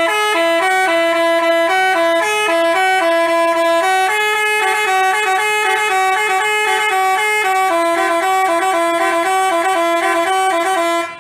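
Basuri telolet bus horn playing a tune: a loud run of buzzy horn notes that steps back and forth between two main pitches, cutting off abruptly near the end.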